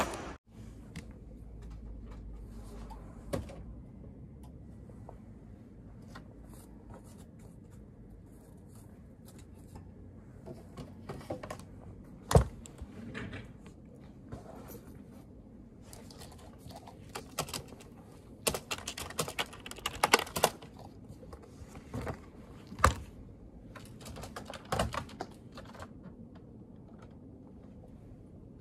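Typing on a computer keyboard and clicking a mouse at an office desk: irregular clusters of key clicks over a low steady room hum. A single sharper knock about twelve seconds in is the loudest sound.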